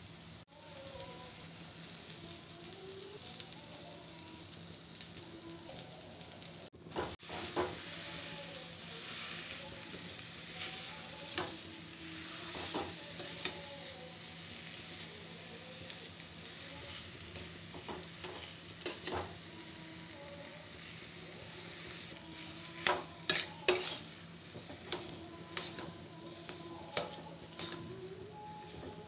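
Onion and potato filling sizzling in oil in a metal kadhai while a steel spatula stirs and scrapes it, with sharp clicks of the spatula on the pan, loudest in a cluster near the end.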